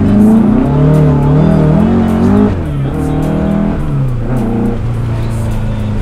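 Air-cooled 2.7-litre Type 4 flat-four engine and exhaust of a VW Beetle heard from inside the cabin while driving: the revs climb and fall with the throttle and gear changes, dropping sharply about two and a half seconds in and again around four seconds, with a short blip, then running steady near the end.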